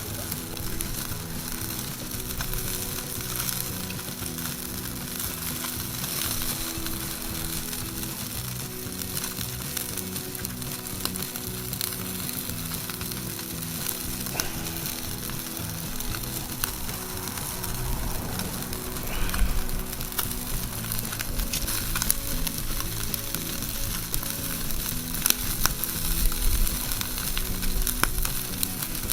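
Chicken-skin skewers sizzling over a charcoal fire, a steady hiss with many small scattered pops and crackles.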